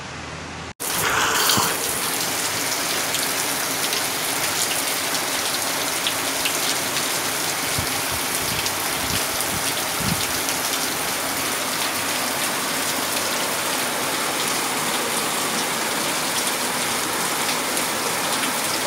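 Heavy rain falling steadily, a dense hiss with many scattered drops, over floodwater running along the street. It begins with an abrupt cut less than a second in.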